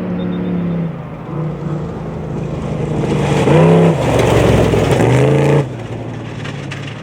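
Off-road race vehicle engine at full throttle, its pitch rising and falling as it revs. It grows loud as it comes close, loudest about four to five seconds in, then cuts off suddenly, leaving a fainter engine.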